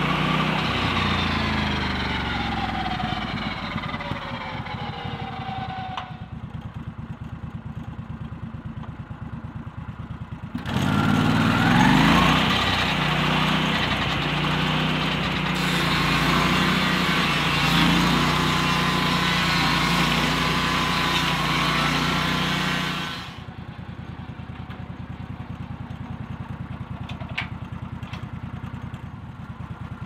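Lucas Mill portable circular-blade sawmill's engine winding down from high speed over the first few seconds, its pitch falling, then idling with a steady chug. About ten seconds in it revs up, runs at high speed for about twelve seconds, then drops back to idle.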